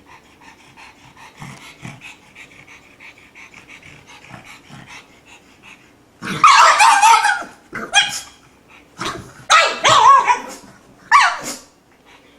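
A pug panting quietly and quickly, then about six seconds in breaking into five loud barks with bending pitch, the first and fourth drawn out to about a second each.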